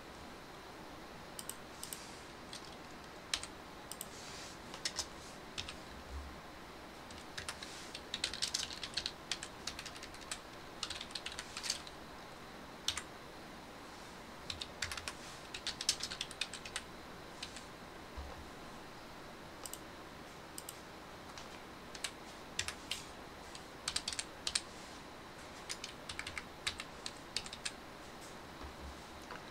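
Computer keyboard typing: sharp key clicks in irregular short bursts, separated by pauses.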